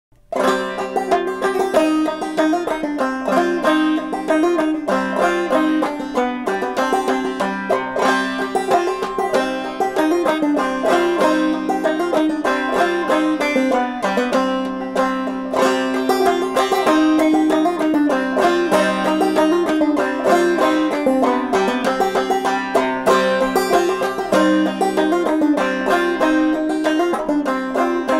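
Solo open-back banjo played clawhammer (frailing) style: a cheap Flinthill with a Renaissance head and a mystery-wood bridge, playing a Swedish polska tune in a minor key in a steady run of plucked notes. It starts about half a second in.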